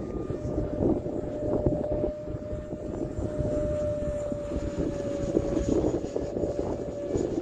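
Radio-controlled F-86 Sabre model jet flying overhead: a steady whine from its motor that drifts slightly lower in pitch and drops away near the end, over the rumble of wind on the microphone.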